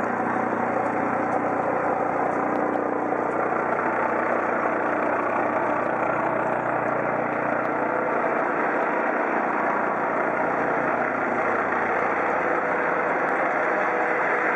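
Eurocopter EC 155 B Dauphin helicopter flying overhead, its rotor and turbines making a steady, loud drone.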